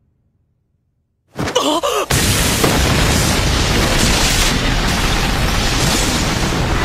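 Dramatised blast sound effects: after a moment of near silence, a sudden boom breaks in about a second and a half in. It runs straight on into a continuous loud rush of blasting wind and flying debris.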